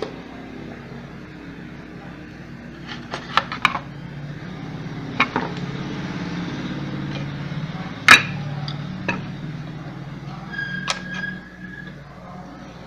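Broken plastic housing pieces of a steam ironing station clicking and knocking as they are handled and fitted together, the loudest a sharp knock about eight seconds in, over a steady low hum. A short high beep sounds near the end.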